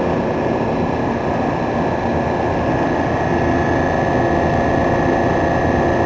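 Copeland Copelametic semi-hermetic refrigeration compressor running on three-phase power: a steady, loud mechanical hum with a thin steady whine on top.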